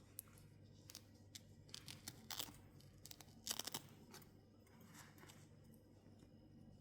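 Faint rustling and scattered small clicks of hands handling a small doll and its plastic packaging, with a few slightly louder crinkles about two and a half and three and a half seconds in.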